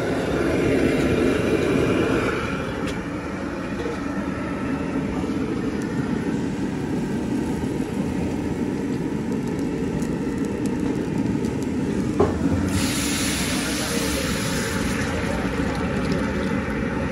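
Steady roadside street noise with traffic running. About two-thirds of the way through, a single sharp knock is followed by a brighter hiss that carries on.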